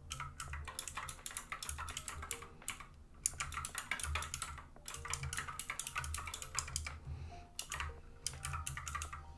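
Typing on a computer keyboard: runs of quick keystrokes, broken by short pauses about three seconds in and again about seven seconds in.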